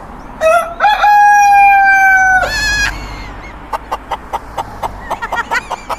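A rooster crows once: a short first note, then a long held note ending in a wavering flourish. After it comes a quick run of short clucking notes, about five a second.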